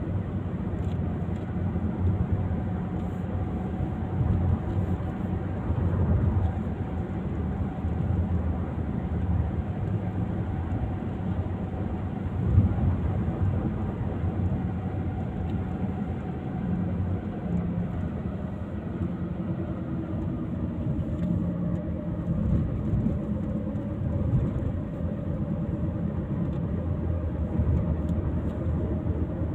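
A car driving, heard from inside the cabin: a steady low rumble of engine and road noise. There is one brief knock about twelve seconds in.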